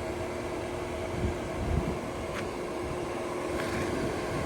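Car running, heard from inside the cabin: a steady low rumble with a faint even hum.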